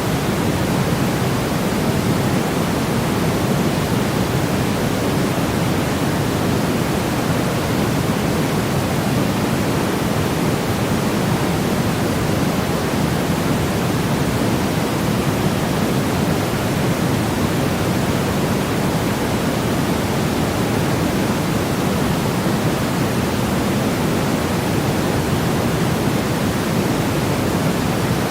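Steady noise track: a constant, unchanging rush with its weight in the low end, closer to pink noise than to flat white noise.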